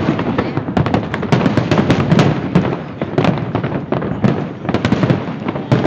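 Large aerial fireworks display, a dense non-stop barrage of bursts and crackling reports, many per second with no break.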